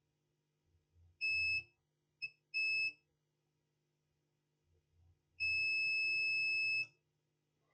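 Digital multimeter's continuity/diode-test beeper sounding as the probes touch the board: two short beeps and a brief blip in the first three seconds, then one longer beep of about a second and a half near the end. A beep means the probes are across a low-resistance path.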